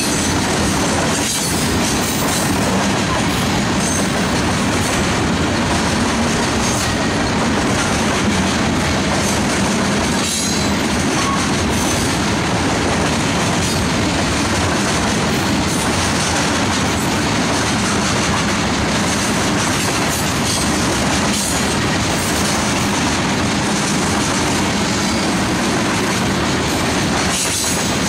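Freight train of covered hopper cars rolling steadily past at track side: wheels running over the rails in a constant rumble and rattle.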